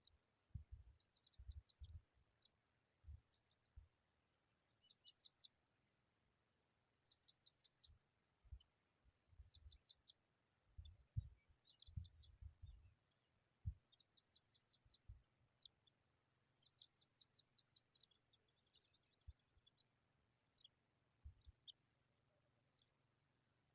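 Skylark giving faint, short bursts of rapid high chirps, about half a second each, repeated every second or two, with one longer trill near the end. Scattered low thumps run under the calls through the first two thirds.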